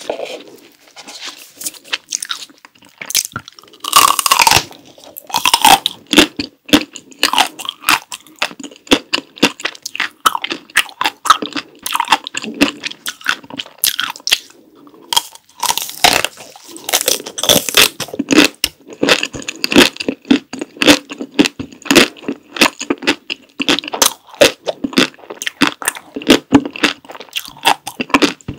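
Close-miked bites into a frozen chocolate ice cream bar: two big crunching bites, about four seconds in and again around sixteen seconds, each followed by steady chewing with many sharp wet mouth clicks.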